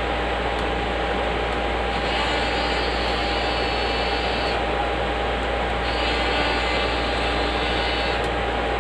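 Hot air rework station blowing steadily, a whooshing hiss with a faint steady whine, aimed at the board of a graphics card. The hiss turns brighter twice, for about two seconds each, a couple of seconds in and again later.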